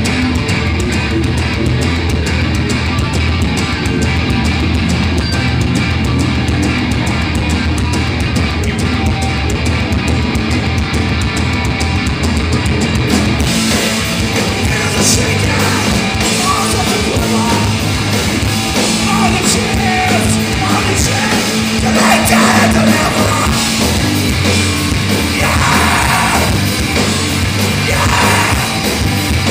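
Loud live rock band playing: electric guitars, bass and drums, heard from within the crowd through the club PA. About thirteen seconds in the cymbals and upper range come up, and a singer's voice joins over the band.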